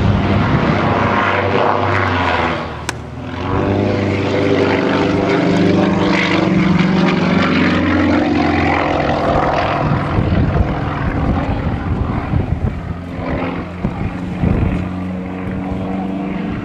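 Single-engine aerobatic propeller plane flying manoeuvres overhead. Its engine note rises and falls in pitch as it rolls and tumbles, with a brief dip in loudness about three seconds in.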